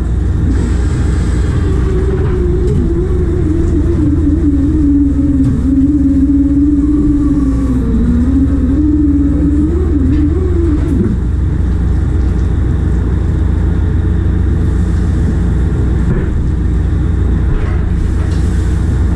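Shrimp trawler's engine droning steadily. A machinery whine wavers in pitch from about two seconds in and stops about eleven seconds in.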